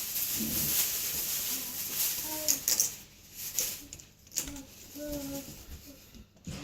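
Light clicks and taps of cardboard jigsaw pieces being handled, with a small child's brief, soft murmurs.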